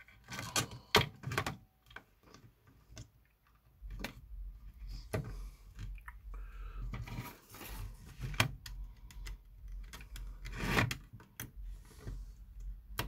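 Small screws and a circuit board being handled and fitted into a plastic enclosure: irregular clicks, taps and knocks, with a cluster of louder knocks about a second in and another near the end.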